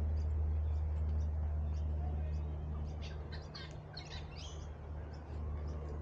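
Birds chirping, with a quick cluster of high calls about halfway through, over a steady low rumble.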